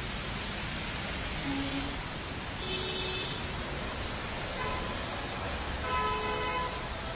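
Steady hiss of heavy rain and traffic on a waterlogged road, with a few short vehicle horn toots, the loudest about six seconds in.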